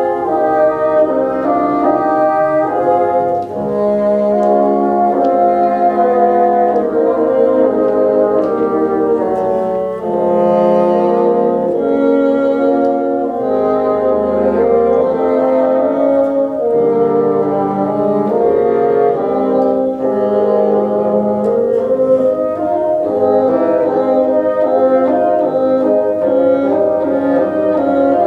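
A bassoon ensemble playing a piece together, several bassoons holding notes in harmony while the chords shift every second or so.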